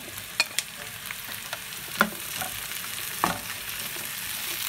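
Chopped green capsicum, onions and garlic sizzling in hot oil in a frying pan, with a steady hiss. A spatula knocks and scrapes against the pan a few times as the vegetables are stirred, the loudest knocks about two and three seconds in.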